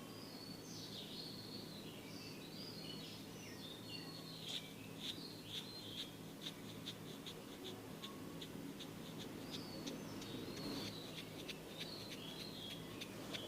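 Small birds chirping and warbling, with a run of quick, evenly spaced notes about three a second through the middle, over a steady low hum.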